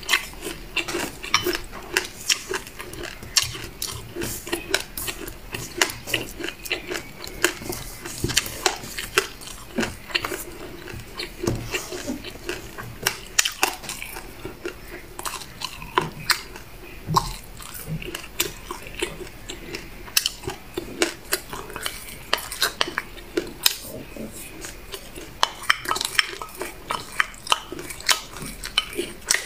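Wooden spoon clicking and scraping against a glass bowl while scooping a thick seed mixture, mixed with close-up chewing and mouth sounds. The clicks come irregularly, several a second.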